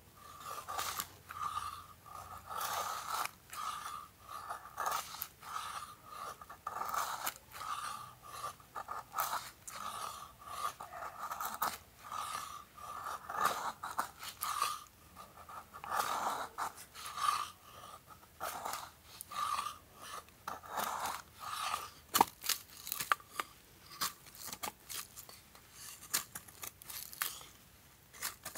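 Repeated crunching, roughly two crunches a second, with a few sharper clicks in the last few seconds.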